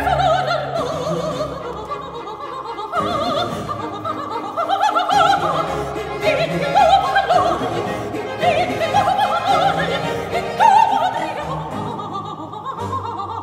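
Soprano singing a Baroque opera aria with vibrato on her notes, accompanied by a baroque orchestra.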